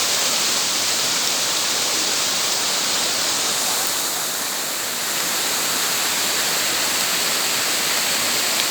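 Waterfall rushing: a steady hiss of falling water that eases slightly for a moment about four to five seconds in.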